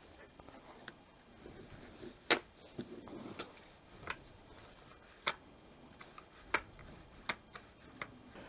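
Scattered sharp clicks and taps, about eight at irregular intervals, as the trimmer's plastic pull-starter parts are handled and fitted together.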